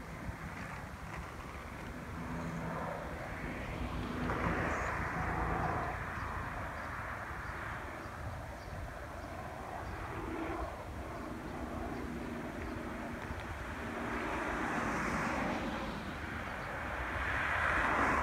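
Helicopter flying overhead, a steady engine-and-rotor drone that swells louder about four seconds in and again near the end.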